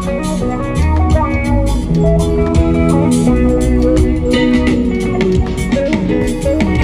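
A live band playing through a loud PA: guitar lines over deep bass and a drum kit keeping a steady beat.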